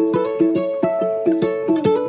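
Background music: a lively plucked-string tune with quick, evenly spaced notes.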